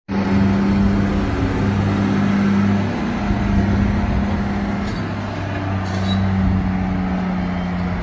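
Pickup truck engine running steadily under heavy load as it tows a gooseneck flatbed trailer carrying a semi tractor, with a low, even drone throughout.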